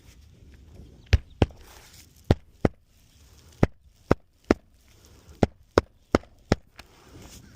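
Hammer driving roofing nails into asphalt shingles during a shingle test repair: about eleven sharp blows, mostly in quick pairs.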